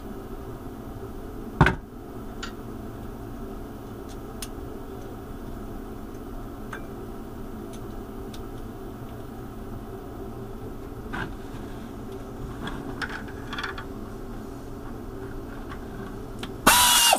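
Steady background hum under scattered light clicks of a hand tool on the mill's metal, with one sharp clink about two seconds in. Near the end a power tool runs in one short burst on the ball nut bolts.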